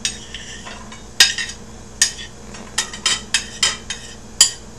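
Kitchen utensils and dishes clacking: a series of sharp, irregular knocks and clinks, about a dozen over a few seconds, as chopped food is handled on the cutting board.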